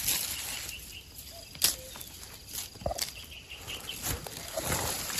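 Dry pine needles and grass rustling and crackling under hands and feet as mushrooms are pulled from the forest floor, with a few sharp snaps. Faint insect chirping sits behind it.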